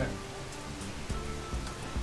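Hot oil sizzling and crackling in a kadai with coconut biscuits frying in it, while a wooden spatula lifts them out, with a couple of light knocks of the spatula against the pan.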